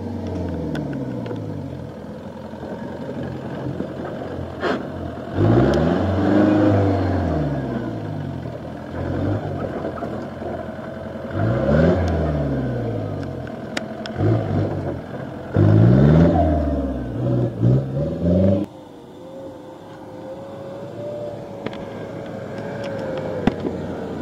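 Off-road jeep's engine revving hard in repeated bursts as it climbs a steep dirt track, the pitch rising and falling with each burst. After a sudden drop near the end, a quieter, steadier engine note.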